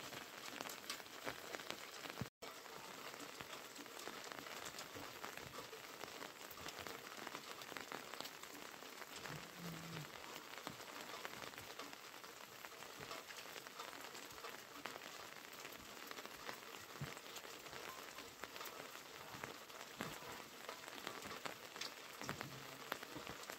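Steady rain pattering, an even hiss of fine drops, broken by an instant of dropout about two seconds in.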